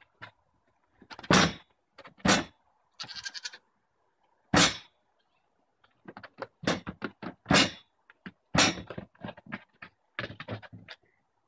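Young goats' hooves clattering on a wooden seesaw board, with the board knocking down loudly as it tips, a dozen or so sharp knocks at uneven intervals. A short goat bleat about three seconds in.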